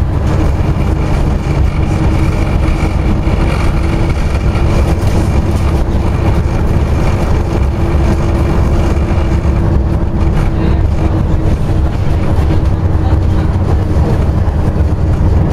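Scania OmniCity double-decker bus heard from inside the passenger saloon while under way: a steady, loud, low diesel engine drone mixed with road rumble.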